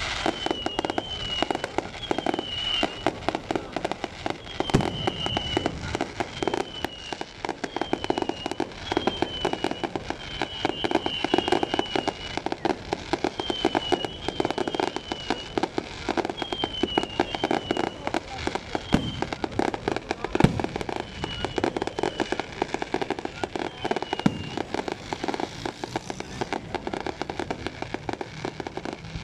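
Fireworks display: dense, continuous crackling and popping with frequent sharp bangs, and short falling whistles repeating over it for most of the time.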